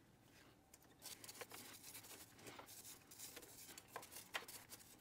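Faint, irregular scraping and scrubbing from about a second in: a plastic scraper and nylon brush cleaning old gasket debris off an aluminum thermostat-housing mounting surface.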